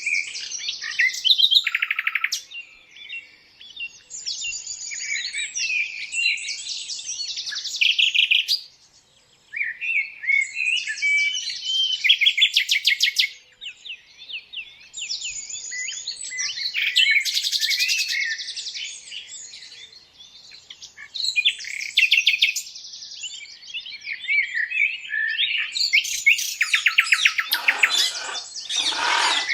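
Several birds chirping and trilling in quick, high-pitched runs of repeated notes, with louder, lower calls near the end.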